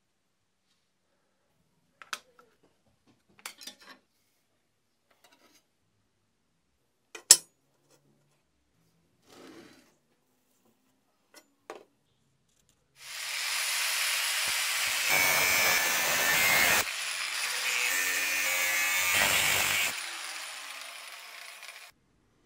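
A few scattered clinks and knocks of metal parts being handled, with one sharp, loud strike, then a power tool cutting or grinding metal for about nine seconds, tapering off near the end.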